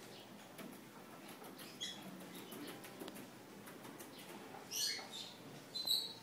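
A few short high-pitched chirps, the loudest and longest about five seconds in, over faint steady background noise.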